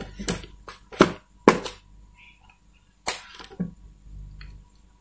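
Four sharp clicks and knocks, irregularly spaced, from handling the opened LED TV's cables and power plug as it is connected up for a test start.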